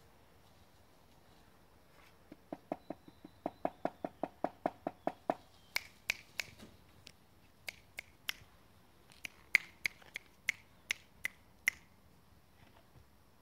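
A person making sharp clicks to draw the border collie puppies' attention. First comes a quick, even run of clicks, about five a second, and then a slower, uneven series of sharper, higher snaps like finger snapping.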